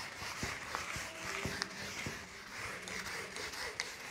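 A whiteboard duster rubbing across the board as marker drawings are wiped off, a steady dry scrubbing hiss with a few soft knocks.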